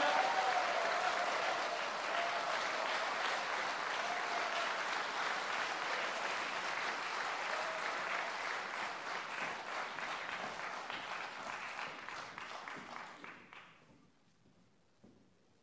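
Audience applauding steadily, starting over the last held sung note, which fades out in the first second. The clapping dies away about fourteen seconds in.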